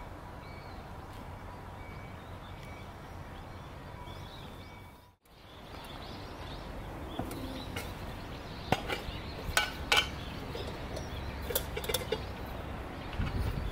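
Outdoor background noise with faint chirping repeated about once a second, then, after a short gap, several sharp metallic clinks and taps as the stainless-steel parts of a small home distiller and a metal ring are handled.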